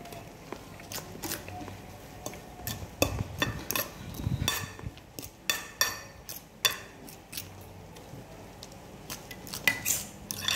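A metal fork clinking and scraping against a glass dish while mashing sardines into beaten egg. The clicks are irregular, busiest from about three to seven seconds in and again near the end.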